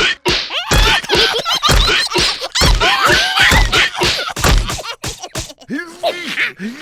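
Cartoon slapstick: about half a dozen heavy thumps and whacks roughly a second apart, mixed with the characters' wordless, squeaky cries and babble. The thumps stop about five seconds in, leaving a few short voice-like sounds that glide up and down.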